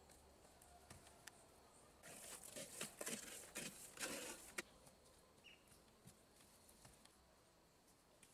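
Wet mortar being scraped and pressed by hand against the blocks and concrete floor, a run of rough scrapes and pats lasting about three seconds in the middle; otherwise faint outdoor quiet.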